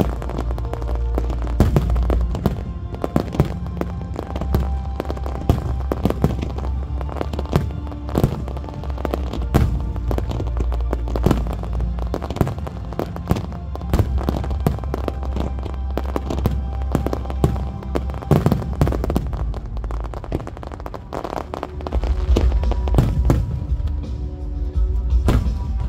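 A fireworks display going off to loud music: many sharp pops and cracks of shells over a soundtrack with held deep bass notes. The bass drops away for a moment about three-quarters of the way through, then comes back stronger.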